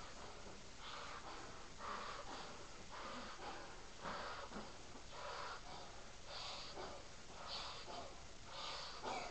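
A person blowing up a giant balloon by mouth: quick breaths drawn in and puffs of air blown into the balloon's neck, over and over.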